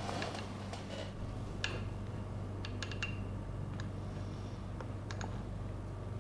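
Quiet room tone with a steady low hum and a few scattered light clicks.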